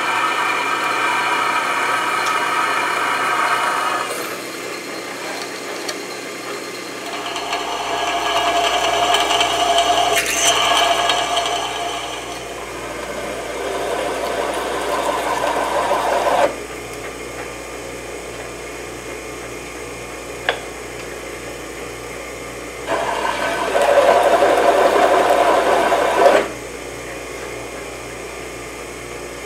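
Drill press running and its bit cutting into a steel plate in four bouts, each cut giving a loud pitched whine. Between cuts the motor hums steadily, and a single click comes about twenty seconds in.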